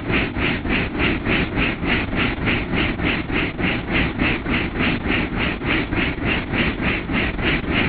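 Helicopter in flight heard from inside the cockpit: a steady engine and rotor drone with an even pulsing about three times a second.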